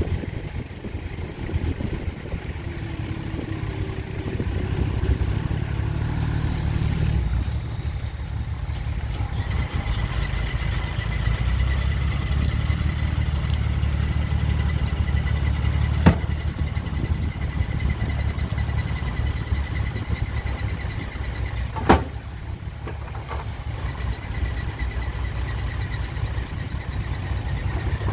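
Heavy construction machinery's diesel engine running with a steady low rumble, a thin high whine joining in about ten seconds in. Two sharp knocks stand out, about six seconds apart.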